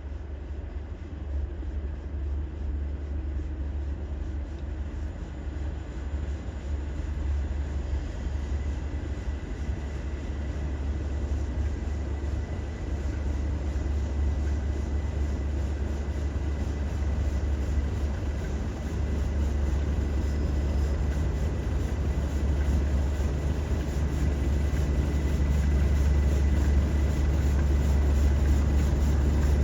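Three British diesel locomotives running together, Class 37 No. 37706 with a Class 45 and a Class 20, engines working with a deep drone and a faint steady high whine. The sound grows steadily louder as they approach.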